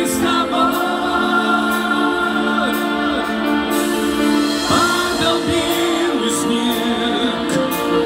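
Live pop band playing with a singer, held keyboard chords under a sung melody line, recorded from within the concert audience.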